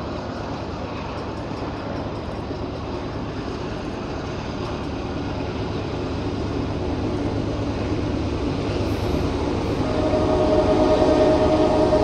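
Diesel freight locomotives approaching, a low rumble growing steadily louder. About ten seconds in, the lead locomotive's air horn starts sounding a held chord.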